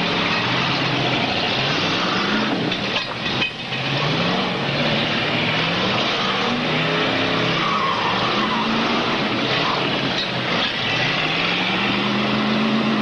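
Demolition derby cars' V8 engines revving hard, pitch repeatedly climbing and dropping, with wheels spinning on the track under a constant hiss of tire noise. A few sharp knocks come about three seconds in.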